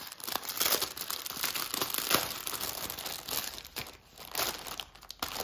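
Clear plastic bag of diamond-painting drill packets crinkling as it is handled, dense for the first four seconds or so, then quieter and sparser.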